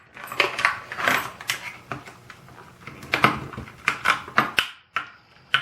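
Packaging being cut at and pulled by hand: a run of irregular crackles, clicks and scrapes as the cutting tool fails to get through.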